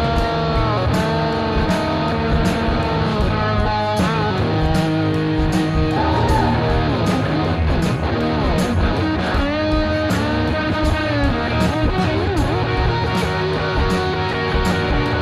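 Rock music: electric guitar with bending lead notes over bass and a steady drum beat.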